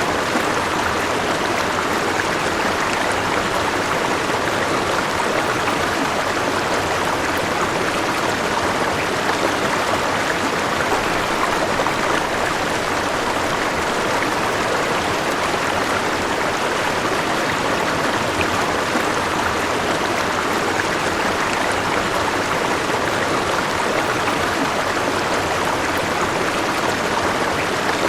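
A river flowing: steady rushing and babbling of water over rocks, even in level throughout.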